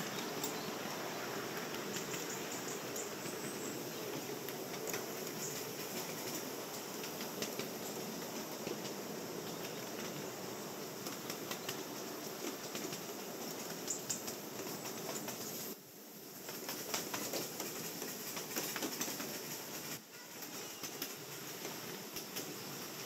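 Miniature steam engine running: a steady noise with many small clicks and rattles, which drops away briefly twice in the second half.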